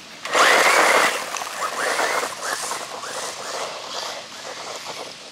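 RLAARLO XDKJ-006 1/14-scale brushless 4WD buggy launching hard on gravel: a loud burst of tyres spraying gravel about half a second in, then the electric motor whine rising and falling as it drives away, fading.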